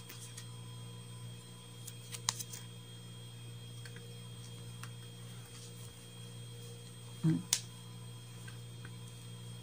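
Quiet handling of a knit sweater and its cardboard tag: a few soft clicks and taps about two seconds in and again near the end, over a steady low hum. A brief murmur of voice comes about seven seconds in.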